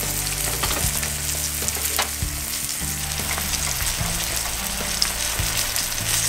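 Cornstarch-dredged whitefish fillets frying in shallow oil in a nonstick skillet: a steady sizzle full of fine crackles.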